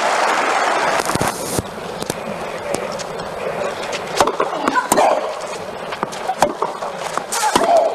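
Crowd noise dying away in the first second, then a tennis rally on a clay court: a serve struck about four seconds in, followed by racket hits on the ball a second or more apart, over a low crowd murmur.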